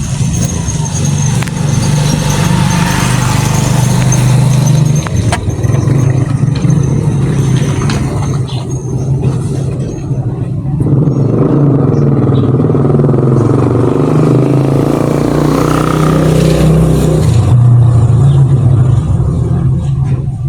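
Motor vehicle engines running close by, a steady low hum throughout. A second engine's pitch shifts up and down in the middle of the stretch, as a vehicle passes or changes speed.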